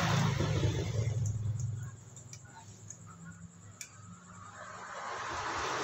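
A motor vehicle's engine passing by, fading out about two seconds in, with another building up near the end. In the quiet between, a few light metallic clicks of engine parts being handled.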